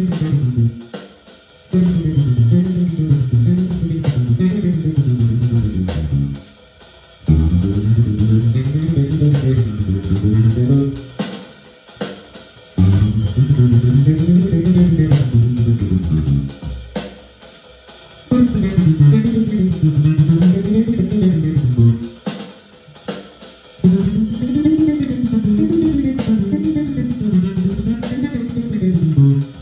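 Solo electric bass playing improvised scalar runs over an A#min7b5 chord, the lines climbing and falling. The playing comes in phrases of about five seconds with short pauses between them.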